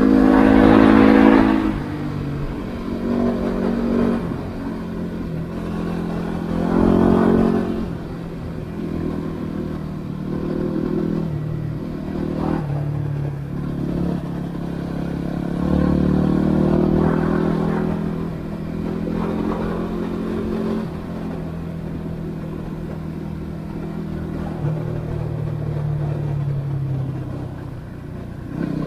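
Yamaha WR250R's 250 cc single-cylinder four-stroke engine revving up and down repeatedly as the motorcycle is ridden, with the strongest throttle surges about a second in, around seven seconds, and around sixteen seconds.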